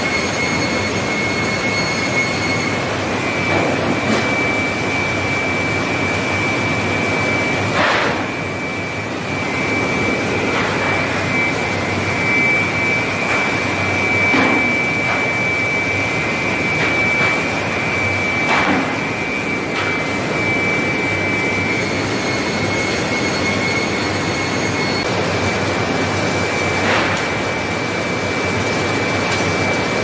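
Sawmill line machinery running: a steady mechanical din with a constant high whine, broken by a few sharp knocks.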